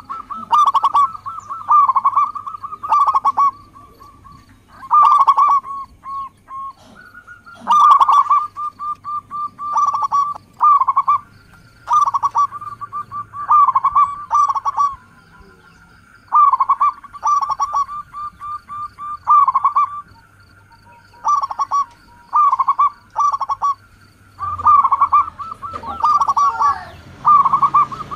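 Zebra dove (perkutut) cooing: repeated short, rapid phrases of staccato coos, a new phrase every second or two.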